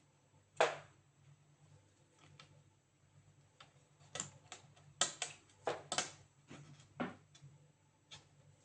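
Irregular small clicks and knocks of laptop parts being handled during repair work on an HP EliteBook 850 G8, with one sharper knock about half a second in and a quick run of clicks around the middle, over a faint steady hum.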